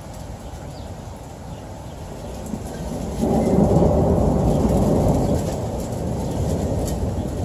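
A clap of thunder rolling: a low rumble builds about two and a half seconds in, turns suddenly loud a little after three seconds, and dies away slowly over the following seconds.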